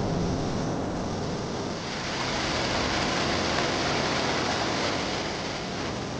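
Mountain stream water rushing in a steady, even hiss, a little brighter from about two seconds in.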